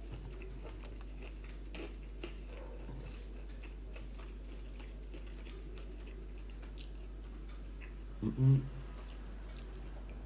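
Quiet eating sounds: a man chewing, with faint clicks of a metal fork against the bowl. Near the end comes one short, low sound from his voice, under a second long.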